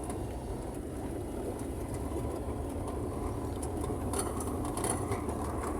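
Car engine running with road noise heard from inside the cabin while driving, the four-wheel-drive transfer case in low range. A few light knocks come about four seconds in.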